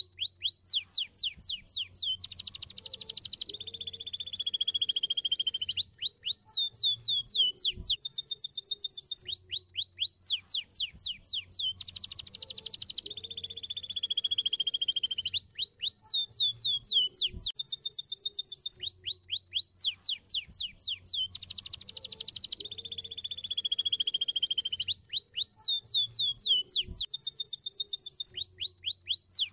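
Domestic canary singing a long, loud song: rapid rolls of short downward-sweeping notes, many a second, alternating with held tones that slowly fall in pitch. The same run of phrases comes round again about every ten seconds.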